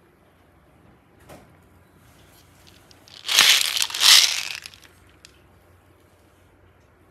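A faint tap, then about three seconds in a loud burst of crinkling, crushing noise lasting a second or so, typical of something being squeezed or crumpled by hand.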